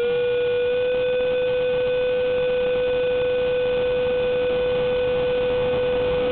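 Electric ducted fan of a Durafly Vampire RC jet, heard from a camera on the airframe, holding a steady high-pitched whine with several overtones at a constant throttle setting.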